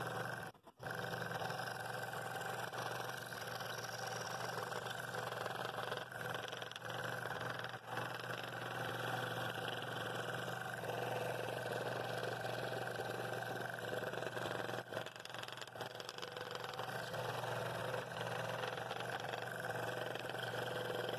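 Scroll saw running, its reciprocating blade cutting steadily through a glued-up poplar and walnut blank, with a brief gap in the sound about half a second in.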